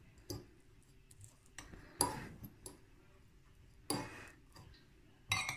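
A metal fork clinking against a bowl as cooked garlic is mashed with it: about four sharp knocks a second or two apart, each ringing briefly, with a few lighter ticks between.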